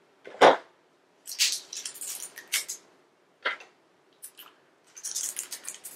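Packaging of a glitter gel pen being opened: a sharp click about half a second in, then crinkly rustling in bursts, with another click about three and a half seconds in.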